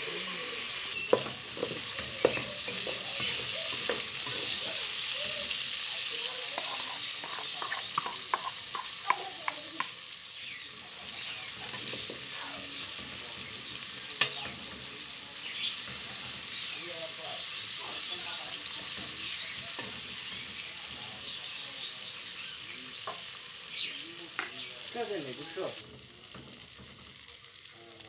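Sliced calabresa sausage, onion and green pepper frying in margarine in an aluminium pot, sizzling steadily while a metal spoon stirs, clinking and scraping against the pot. Near the end the sizzle drops suddenly in level.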